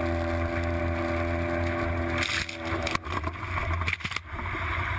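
Boat motor running steadily, a constant low hum with a few steady tones over it that fade out a little under three seconds in.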